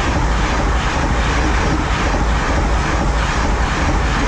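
Electric commuter train passing close by at speed: a loud, steady rush of wheels on rails and air, with a faint regular pulsing from the passing cars.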